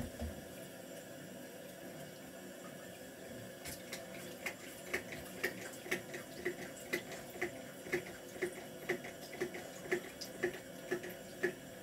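Hands washing an obsidian stone in a sink of soapy water: faint water noise, then from about four seconds in a regular run of small splashes and knocks about twice a second.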